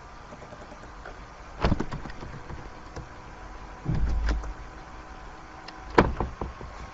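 Three sudden knocks about two seconds apart over a faint steady hum: a sharp one, then a duller low thump, then the loudest and sharpest, followed by a couple of small clicks.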